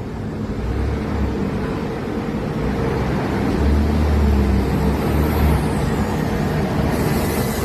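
Volvo B340M bus's diesel engine running with a steady low rumble. About seven seconds in, a hiss of compressed air starts.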